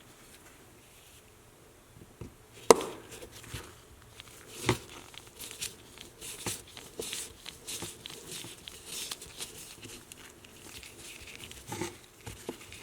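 Handling noises: a sharp click about two and a half seconds in, a knock a couple of seconds later, then scattered light clicks and crinkly rustling.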